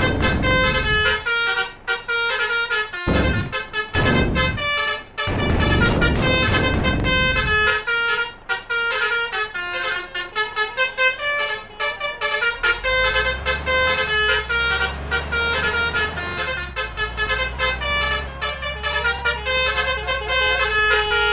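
Telolet Basuri trumpet horns on a convoy vehicle, a set of electric horns playing a quick tune of stepping notes throughout. Loud rushing bursts come and go over the first several seconds, and a low steady hum joins about halfway.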